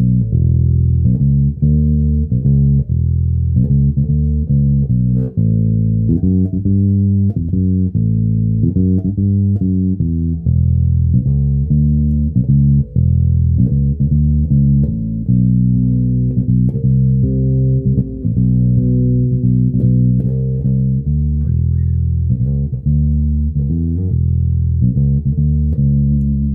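Electric bass guitar played through a bass amp and 4x10 cabinet: an unbroken line of plucked notes, changing pitch several times a second, with a deep tone and little treble.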